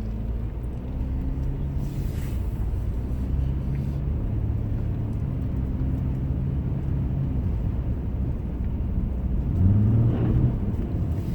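Cabin sound of a 2010 Acura MDX driving on snow and ice: a steady engine and road rumble. Near the end the engine note rises and gets louder for about a second.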